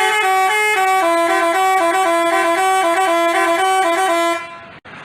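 Basuri telolet multi-tone bus horn playing a rapid tune of short, stepping notes. It stops suddenly about four and a half seconds in, leaving a quieter hiss.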